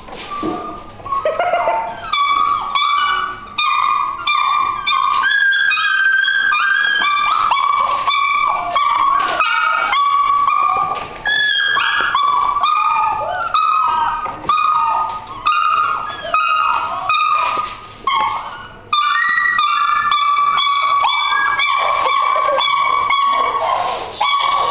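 Dalmatian puppies whining and yipping almost without pause as they play, in high, drawn-out cries broken by short yips, with a brief lull about nineteen seconds in.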